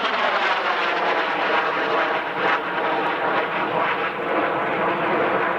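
Fixed-wing aircraft engine running in a steady, dense drone. Its pitch slides down in the first half second, then holds.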